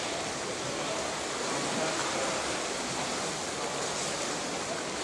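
Steady rushing water noise from a camera submerged in a swimming pool.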